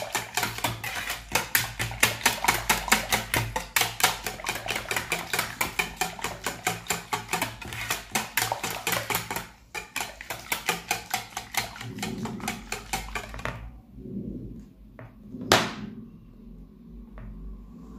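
Wire whisk beating an egg, oil and yogurt mixture in a plastic bowl: fast rhythmic strokes against the bowl, several a second, with a brief break partway. The whisking stops a little past the middle, followed by light clatter and one sharp knock.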